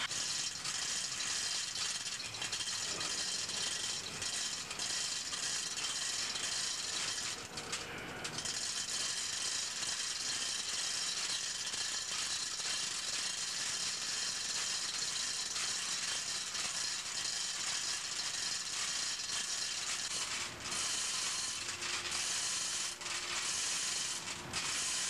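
Continuous dense mechanical rattling with a ratchet-like chatter, steady apart from a brief dip about eight seconds in and flickering near the end.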